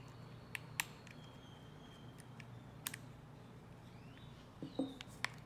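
Light metal clicks and small scrapes of a screwdriver working the grip screws on a Colt Match Target .22 pistol, about half a dozen scattered ticks over quiet room tone.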